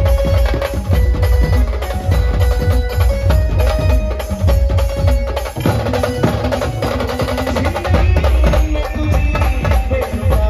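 Maharashtrian brass band playing loud amplified music through large speaker stacks: a held melody line that steps between notes, over heavy bass and dense, fast drumming.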